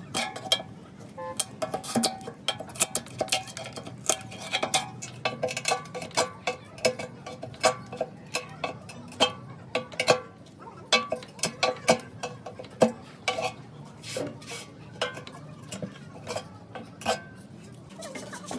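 Metal tools and parts clinking and tapping in quick, irregular succession, many strikes with a short metallic ring.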